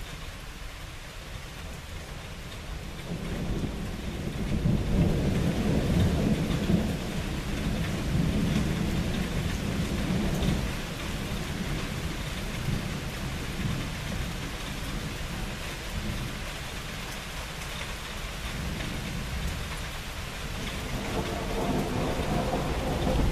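Steady rain falling during a thunderstorm, with a long low roll of thunder. The roll builds a few seconds in, is loudest for several seconds, then fades, and another rumble of thunder begins near the end.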